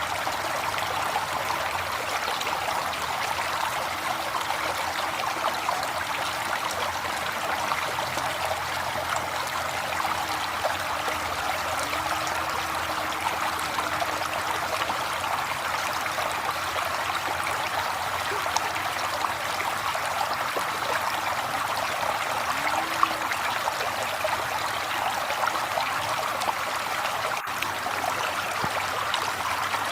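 River water flowing steadily, an even, continuous rush with no pauses.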